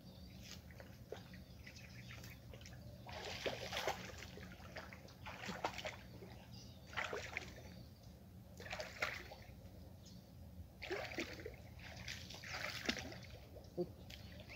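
Splashing and sloshing of water as a person wades knee-deep through a muddy pond: about six separate splashes, one every second or two.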